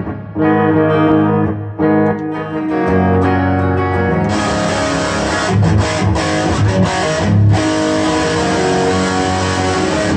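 Electric guitar, a semi-hollow body, played through a Tech 21 RK5 SansAmp fly-rig preamp pedal. It plays notes and chords, and the tone turns fuller and brighter about four seconds in.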